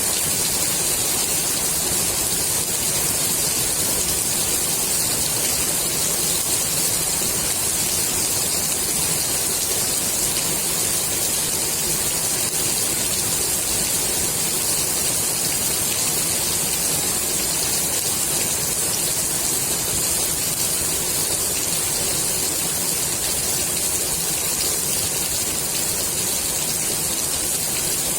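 Steady heavy rain falling on the water of a swimming pool, an even hiss with no letup.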